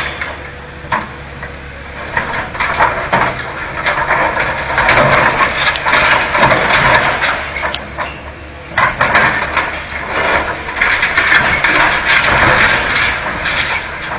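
Excavator engine running under load while the machine breaks up and drags demolition rubble, with repeated knocks, cracks and clattering debris. There is a brief lull about eight seconds in.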